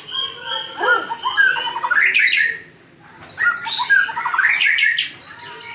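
White-rumped shama singing: two phrases of varied whistles and quick sweeping notes, with a short break between them about two and a half seconds in.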